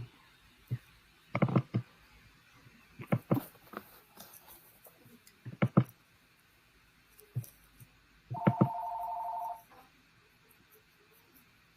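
Scattered knocks and clicks, as on an open microphone, then about eight seconds in a phone-style electronic ring of two warbling tones lasting just over a second.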